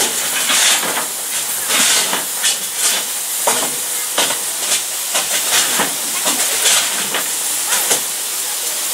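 Narrow-gauge steam locomotive standing with steam hissing steadily. Irregular short, sharper spurts break the hiss every half second to a second.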